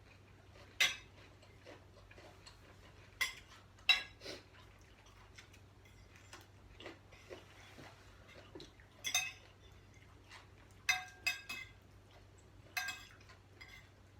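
Cutlery clinking against plates as people eat: irregular short, bright clinks every second or two, some ringing briefly.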